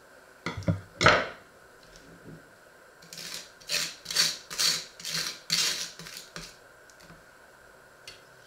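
Table knife spreading butter on toast: a run of about seven scrapes, roughly two a second, across the dry toasted bread. Near the start, a metal utensil knocks twice as it is set down on the wooden table.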